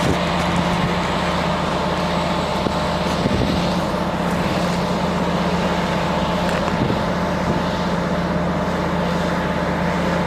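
Heavy diesel truck engine running steadily under load as the truck hauls a huge steel tube section slowly up a dirt grade.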